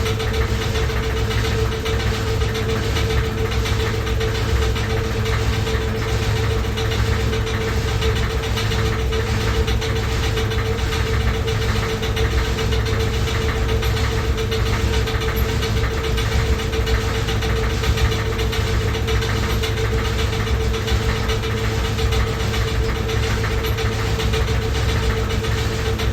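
Washing machine running loudly with a steady hum and low rumble, overlaid by a fast, regular knocking.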